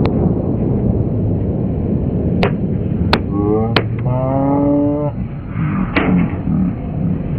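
Indoor track crowd noise during a sprint race: a steady din of spectators cheering, a long held yell from one person from about three to five seconds in, and several sharp claps or bangs.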